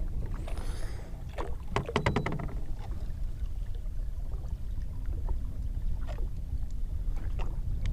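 Steady low rumble of an open fishing boat on the water, with a short rapid run of light clicks about two seconds in and a few single clicks later.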